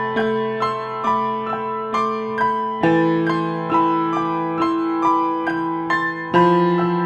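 Calm solo piano music: a slow, repeating melody of single notes, about two a second, over sustained bass notes that change twice.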